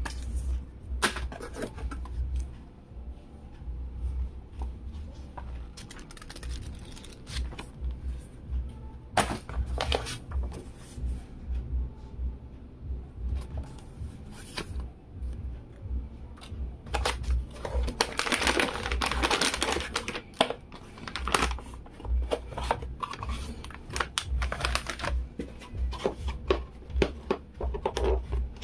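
Paper and cardboard packaging being handled by hand: scattered rustles, taps and clicks, with a longer stretch of rustling a little past halfway, over a low uneven rumble.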